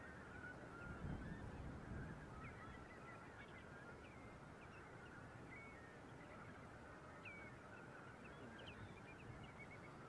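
A distant flock of birds calling on the Wadden Sea coast: a constant chatter of many short, overlapping calls, with a low rumble underneath that is strongest in the first couple of seconds.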